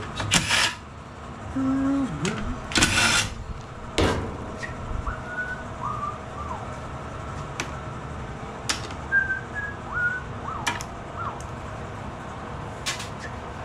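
Cordless drill run in two short bursts, backing out screws on a mower engine, followed by a single knock about four seconds in as the drill is set down. A few faint short whistle-like chirps come after.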